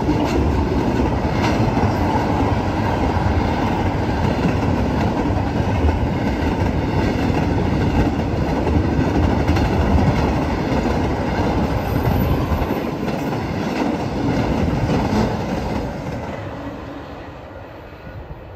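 Intermodal freight train's double-stack well cars and trailer-carrying cars passing at about 70 mph: a loud, steady rumble and rattle of steel wheels on rail, with occasional wheel clicks. It fades away over the last few seconds as the end of the train passes and recedes.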